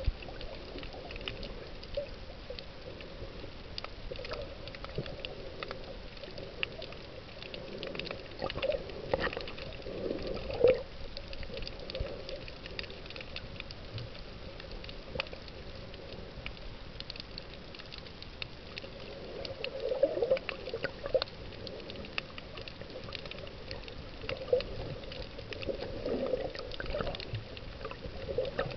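Underwater ambience in shallow water with a strong current: a steady hiss peppered with small clicks and crackles, and water surging louder around ten seconds in and again after twenty.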